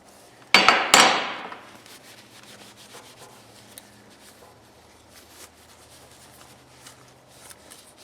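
Two loud knocks with a short scraping rattle, about half a second and a second in, as a metal hand tool is handled and set down on a workbench, followed by faint small handling ticks.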